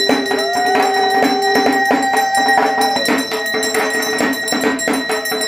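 A conch shell (shankha) is blown: the note rises at the start and is held steady as one long tone until it stops about three seconds in. Under it, metal bells ring in a quick, steady rhythm.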